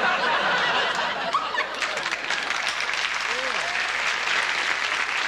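Studio audience laughing and applauding after a punchline. The clapping becomes thick from about two seconds in.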